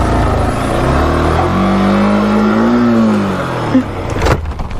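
Yamaha R15's single-cylinder engine running, the revs climbing and falling back, then a few sharp knocks and a short clatter about four seconds in as the bike goes down on the grass.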